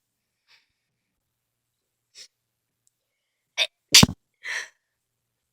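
A person sneezing, part of a sneezing fit: one loud, sharp sneeze about four seconds in, with a quick catch of breath just before it and a breathy tail after. Two faint short breath sounds come earlier.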